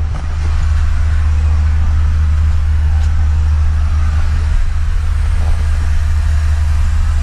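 Steady low engine drone with an even hiss of running noise, as of a vehicle in motion.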